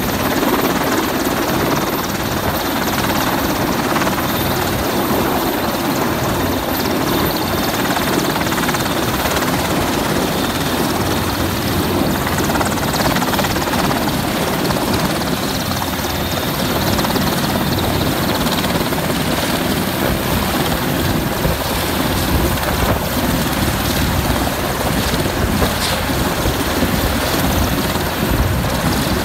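Merlin Mk4 helicopter hovering close by and moving in over a ship's flight deck: the steady, loud sound of its rotor and turboshaft engines.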